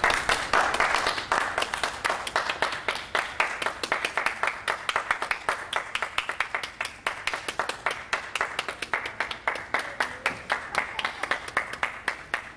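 Applause from a small audience, clapping hands: a dense burst at the start that settles into fewer, more even claps.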